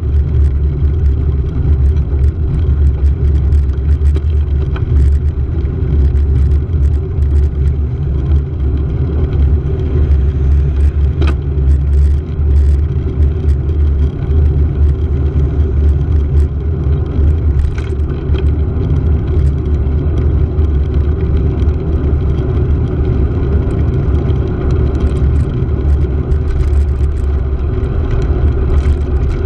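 Steady low rumble of wind buffeting a handlebar-mounted camera's microphone, with road noise while riding, and scattered small clicks and rattles throughout.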